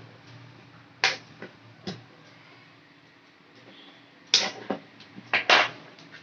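Sharp clicks and knocks of a tool on the plastic case of a 12 V DC power adapter being prised open: two about a second apart, then a quick cluster of four near the end.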